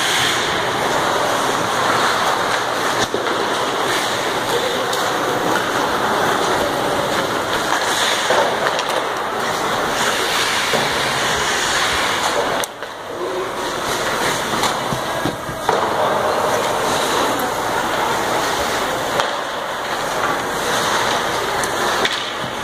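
Ice hockey play on an indoor rink: skate blades scraping and carving across the ice in a steady noisy wash, with a few sharp knocks.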